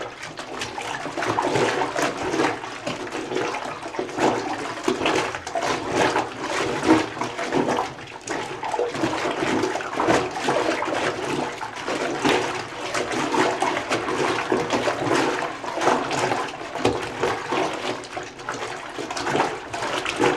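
Dark clothes being agitated by hand in a five-gallon plastic bucket of hot soapy water: irregular sloshing and splashing that rises and falls.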